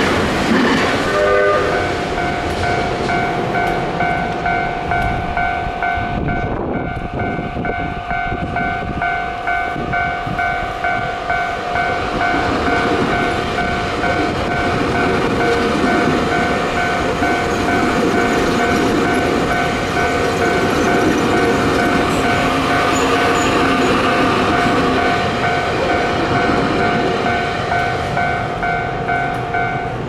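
Japanese level-crossing alarm ringing in a steady repeating electronic clang while Keio Inokashira Line commuter trains pass over the crossing, their wheels clattering on the rails, one at the start and another through the middle. The alarm stops at the very end as the crossing clears.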